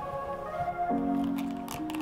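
Soft background music of held chords that change about every second, with a couple of faint clicks near the end.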